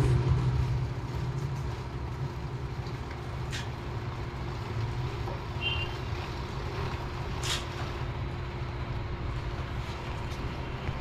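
A steady low engine hum with a few faint clicks.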